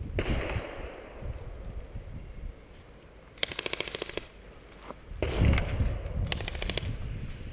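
An airsoft electric gun firing two short full-auto bursts, a rapid even rattle of shots about three and a half seconds in and again, fainter, about five seconds in.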